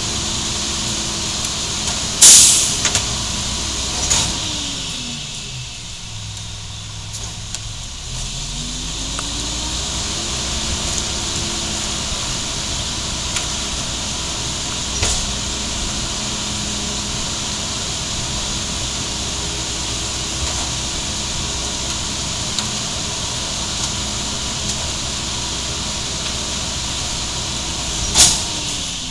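Mack MR cab-over garbage truck's diesel engine revving up and down under the McNeilus rear loader's packer hydraulics while the blade cycles the hopper load into the body: engine speed drops about four seconds in, climbs again a few seconds later, holds high, and falls near the end. A loud sharp bang about two seconds in and another near the end stand out over a steady hiss.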